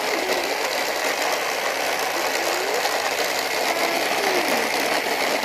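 A small electric motor whirring steadily, such as a motorized Hot Wheels track booster running.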